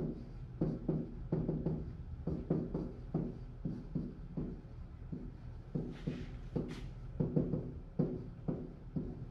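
Soft, rhythmic knocks, about three a second, with a short hiss about six seconds in.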